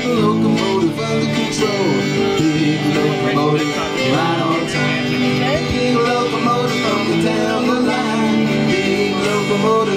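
Two acoustic guitars playing an upbeat country-blues tune live, with a voice singing along at times.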